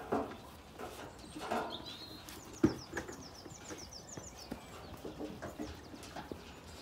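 Small birds singing in a run of quick falling notes, with a sheep bleating once about a second and a half in. A sharp knock a little later is the loudest sound.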